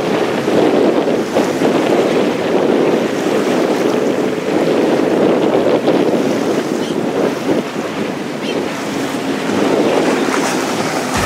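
Personal watercraft engines droning and changing pitch as the jet skis race across the water, mixed with wind buffeting the microphone and the wash of waves.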